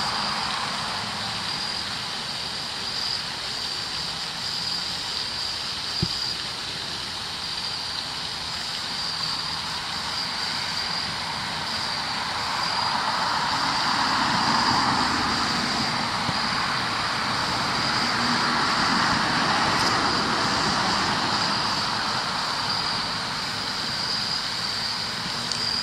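Distant road traffic: a steady hiss that swells and fades a couple of times as vehicles pass, under a steady high-pitched tone. A single click about six seconds in.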